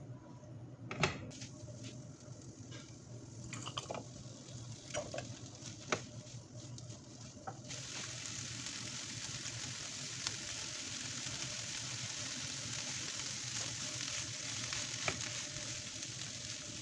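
Vegetables sizzling in a nonstick frying pan as they are stir-fried with a silicone spatula, with a few sharp knocks in the first half. About halfway through, the sizzling turns suddenly louder and steady.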